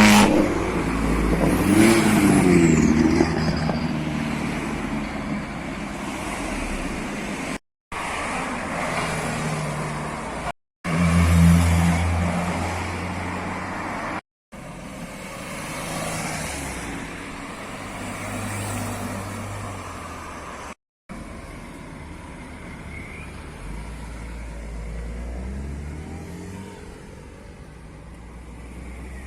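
Modified cars' engines and exhausts revving and driving past, with a rise and fall in pitch in the first few seconds, in several short clips separated by brief dead silences.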